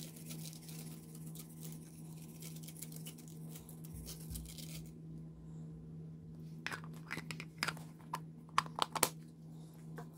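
Slime being mixed and squished by hand: a soft crackling hiss for the first half, then a run of sharp sticky pops and clicks. A steady low hum runs underneath.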